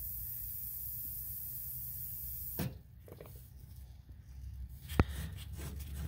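Trapped air hissing steadily out of an opened baseboard radiator bleeder (coin vent) in a hot-water heating system, the sign of air still in the loop. The hiss cuts off suddenly a little under three seconds in, followed by faint handling and a sharp click about five seconds in as the vent is worked by hand.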